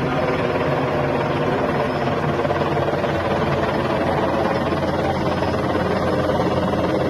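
Helicopter flying overhead: a steady, rapid rotor chop with the engine's hum, holding at an even level.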